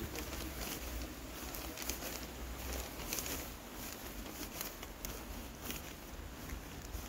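Footsteps on stone paving: light, irregular ticks about two a second, over a low steady rumble.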